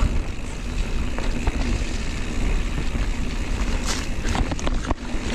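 Electric mountain bike ridden along a rough woodland trail: steady wind and ride noise on the camera microphone, heaviest in the lows. Sharp knocks and rattles of the bike over bumps come from about four seconds in.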